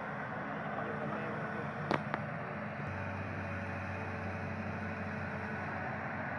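Hitachi Zaxis 200 hydraulic excavator's diesel engine running steadily while the machine swings. Two sharp clicks come about two seconds in, and a deeper hum joins about a second later.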